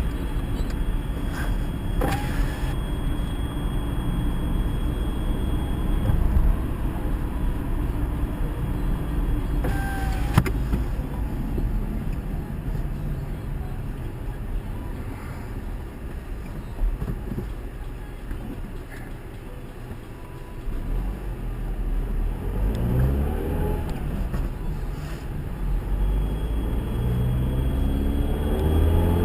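Car being driven, with a steady low road and engine noise. The engine note rises as it accelerates about two-thirds of the way through and again near the end. Two short sharp sounds stand out, about two seconds in and about ten seconds in.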